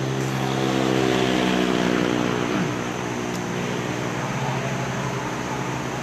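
A motor vehicle's engine passing close by, a steady hum that swells about a second in and then fades, over a constant wash of surf and wind.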